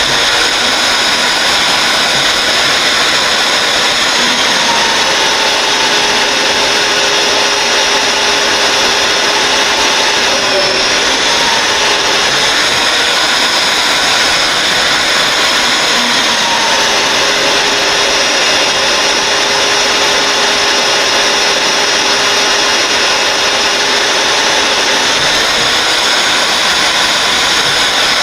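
Drill running a 1-1/4-inch annular cutter through half-inch steel plate, with a steady, loud motor whine. The pitch sags briefly a couple of times as the cutter takes load.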